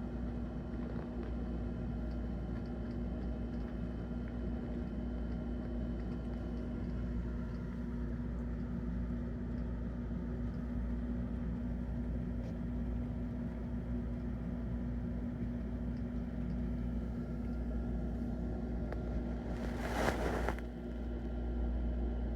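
Steady low hum from some appliance or machine running, with one short burst of noise near the end.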